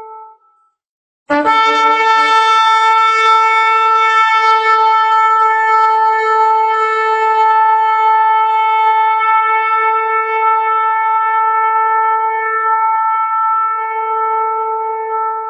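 A ritual blowing horn sounded in one long, steady blast. It starts sharply about a second in, just after an earlier blast has died away, and is held for more than fourteen seconds.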